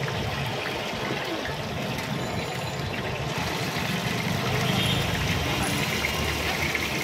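Marinated chicken pieces deep-frying in a pool of hot oil on a steel street griddle, sizzling steadily, over a low steady hum.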